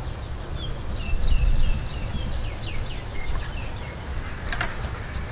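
Birds chirping in a run of quick, short, falling calls over a low rumble, with a single sharp knock of a knife on a wooden chopping board about four and a half seconds in as limes are cut.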